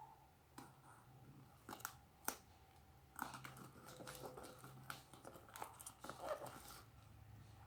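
Parcel packaging being handled and opened: scattered crinkles, rustles and sharp clicks, the sharpest about two seconds in, over a faint steady hum.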